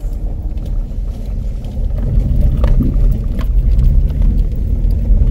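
A 4x4 driving slowly over a rocky gravel track, heard from inside the cabin: a steady low rumble of engine and tyres, with scattered small knocks from stones and rattles.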